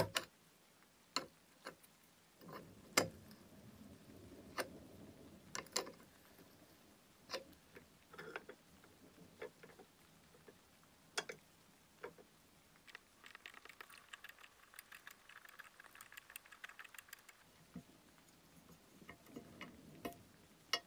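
Small metallic clicks and taps as the control valve of an antique brass blowtorch is taken apart with a wrench and by hand. About two-thirds through comes a quick run of fine ticking lasting about four seconds as the valve spindle is screwed out of the valve body.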